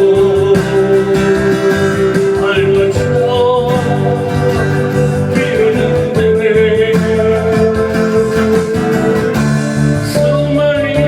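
A voice singing a slow song over guitar accompaniment, holding long notes with a slight waver in pitch.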